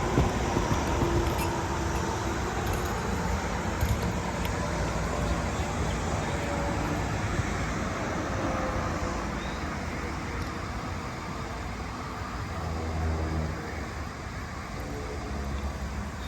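Steady road-traffic noise, with a vehicle's engine hum swelling about 13 seconds in and again near the end. A few faint knocks come early on.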